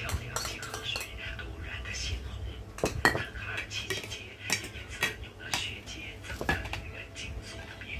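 Cutlery clinking against dishes while eating, in short irregular clicks, the loudest about three seconds in.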